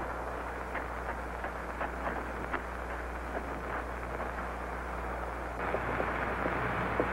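A lit blasting fuse hissing and sputtering as it burns along the rock, with a steady sizzle scattered with small sharp crackles; the hiss grows a little louder about five seconds in.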